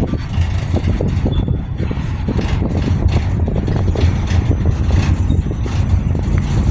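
CSX freight train M601 rolling by at close range: a steady low rumble with frequent irregular knocks and clanks.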